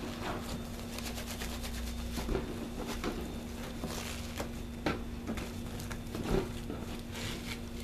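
Plastic-wrapped bamboo sushi mat being squeezed and rolled by hand around a maki roll to compress it: irregular soft rustles and light clicks, over a steady low hum.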